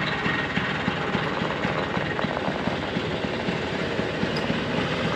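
A vehicle running: steady engine noise with a dense rattle.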